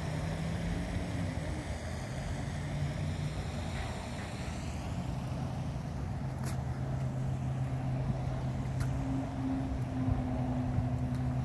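Steady low mechanical hum over a soft outdoor rush, with a couple of faint clicks.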